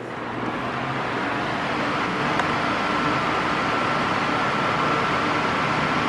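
Arno 40 cm electric fan running, its rushing airflow swelling over about the first second and then holding steady, with a faint steady whine from about two seconds in.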